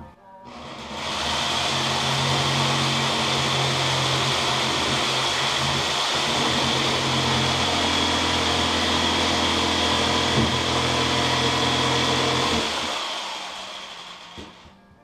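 Jigsaw running steadily with a high whine, cutting a piece of plastic water-main pipe. It comes in about a second in and dies away over the last two seconds.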